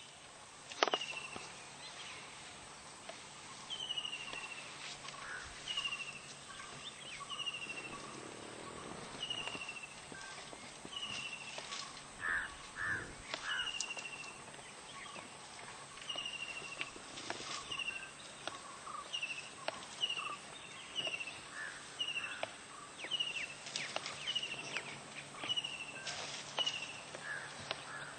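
A bird calling over and over, a short high note falling in pitch, repeated roughly every one to two seconds, with scattered sharp snaps and rustles in the background.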